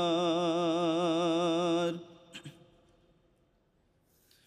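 A man's solo unaccompanied chanting voice holds the drawn-out final note of a line of an Urdu nazm, with an even wavering vibrato. It stops abruptly about two seconds in, and near silence follows.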